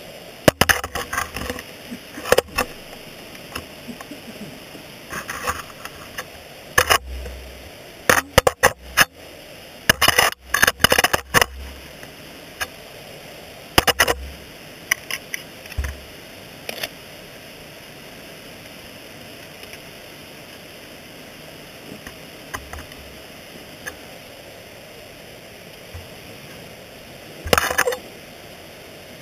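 Ice-tool picks and crampons scraping and clacking on rock during dry tooling, picked up close by a camera on the tool: scattered sharp clicks and scrapes, thickest around ten seconds in, over a steady background hiss.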